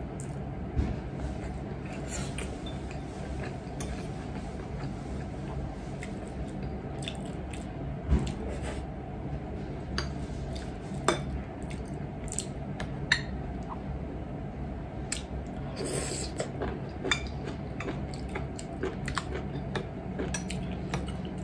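Metal fork and spoon clinking and scraping against ceramic plates and bowls during a meal, scattered sharp clicks over a steady low hum.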